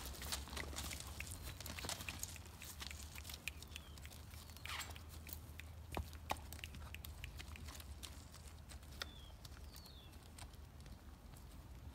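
Faint, irregular hoof falls of a gaited horse moving over the ground, heard as scattered light knocks, over a steady low hum.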